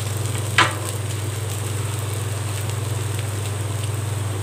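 Green gram dosa cooking on a hot tawa, giving a faint, steady sizzle and crackle over a constant low hum. A brief short sound comes about half a second in.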